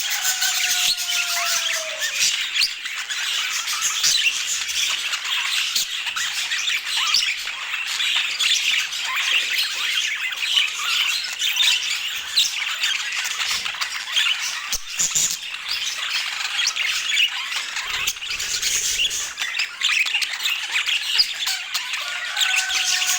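A group of budgerigars chattering and squawking without pause, with a falling whistle near the start and again near the end.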